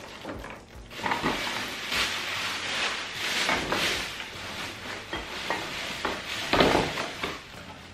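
Thin plastic shopping bags rustling and crinkling as items are pulled out and handled, with a louder rustle about six and a half seconds in.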